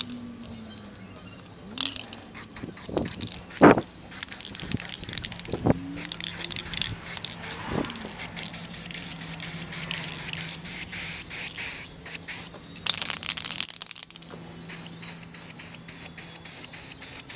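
Aerosol can of matte black spray paint hissing in passes over car bodywork, a short spray early on, a long one from about six to twelve seconds in and a strong burst near thirteen seconds. A few short knocks break in, the loudest about four seconds in.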